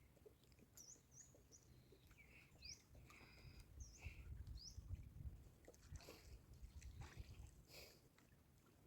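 Near silence with faint birds chirping: a handful of short, quick calls in the first half, then a couple of faint rustles.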